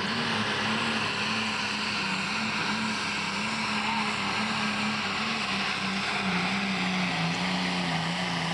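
Turbocharged diesel engine of a 10,000 lb pro stock pulling tractor running hard under full load while dragging the sled. The note is loud and steady, dropping slightly after about six seconds and then wavering.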